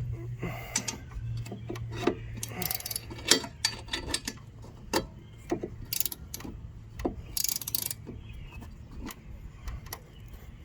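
Irregular metallic clicks and clinks of a hand wrench tightening the blade bolt on a Honda HRX217 lawn mower, with a few short rasping bursts in between.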